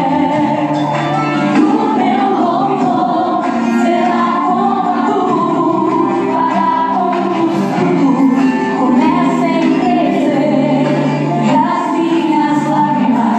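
Gospel song playing loud and steady: singing voices, with a choir, over backing music.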